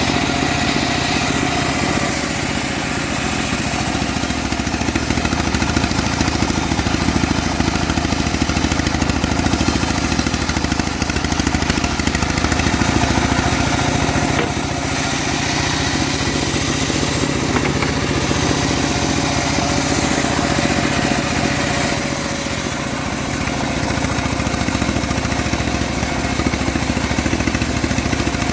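Homemade engine-driven bandsaw sawmill running steadily, its engine under continuous load, with brief dips in loudness a few times.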